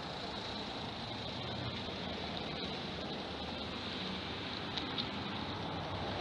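Road traffic: cars driving through the intersection, a steady wash of tyre and engine noise.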